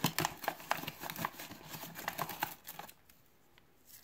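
Crinkling and rustling of a bread-mix bag and its plastic inner liner as hands dig out a yeast packet; it stops about three seconds in, leaving only a faint tick or two.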